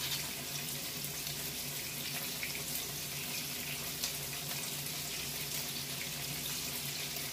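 Salmon fillets sizzling in a hot nonstick skillet as an oil-based herb marinade is poured over them from a bottle: a steady hiss with a few faint crackles.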